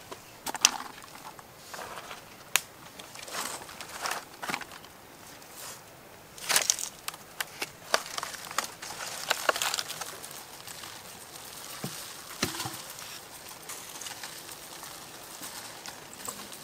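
Irregular clicks, light taps and rustling from food being handled: snail shells, chillies and leaves being packed into a clay jar.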